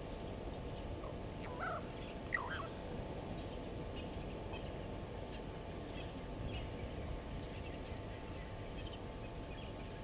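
Brown-headed parrot giving two short, bending squawks about two seconds in, with a sharp click between them. Faint distant chirps follow over steady outdoor background noise.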